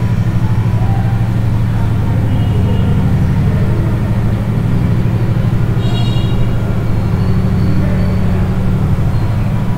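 Steady low rumbling hum throughout, with a couple of faint, short high squeaks from a marker writing on a whiteboard.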